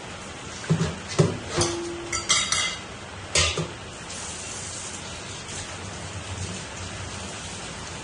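Crab soup at a rolling boil in a pan, bubbling with a steady hiss. During the first half, several sharp clinks and knocks of cookware stand out above it.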